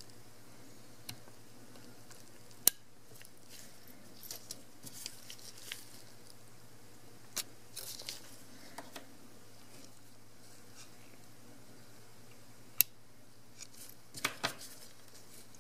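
Small handling sounds of an awl and gloved hands working a flat ribbon cable out of its connector on a camera's circuit board: scattered light clicks and rustles, with two sharp clicks louder than the rest, over a faint steady hum.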